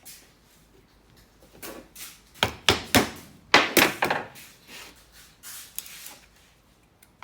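A blade cutting and prying out bits of wood: a series of short knocks and scrapes, loudest in a cluster about two and a half to four seconds in.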